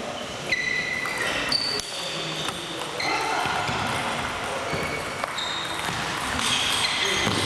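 Table tennis balls clicking off bats and tables, several rallies at once in a large hall, with a murmur of voices behind.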